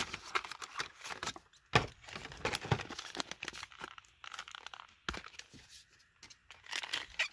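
Clear plastic blister pack of a diecast car being pried and torn off its cardboard card: irregular crackling and crinkling of the plastic, with a couple of sharper snaps.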